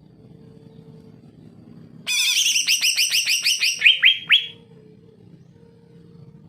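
A male green leafbird (cucak ijo) sings one burst of about two seconds. It is a fast run of repeated sweeping whistled notes that ends in three louder, down-sweeping notes.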